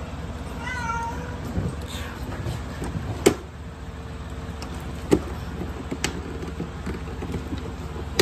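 A young kitten gives one short mew about a second in, over a steady low hum. A few sharp clicks follow, the loudest about three and five seconds in.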